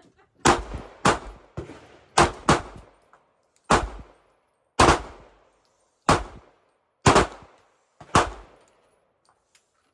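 Glock 26 9mm subcompact pistol firing about ten single shots at an uneven pace, some in quick pairs and others a second or more apart, each shot ringing briefly.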